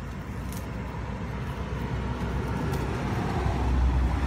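Low rumble of a passing motor vehicle, growing louder toward the end.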